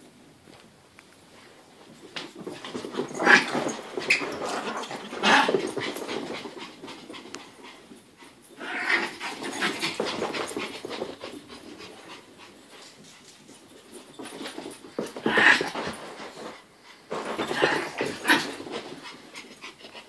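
Two Pomeranians playing rough, panting and scuffling in several bursts of a second or two each, with quieter pauses between.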